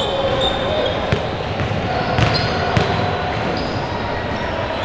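Basketball bouncing on a hardwood gym floor, a few separate knocks, with short sneaker squeaks and background voices in a large, echoing gym.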